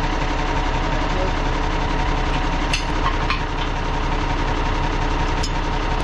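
Ford TW-20 tractor's six-cylinder diesel engine idling steadily, with a few sharp metal clinks as the harrow is hitched to the three-point linkage.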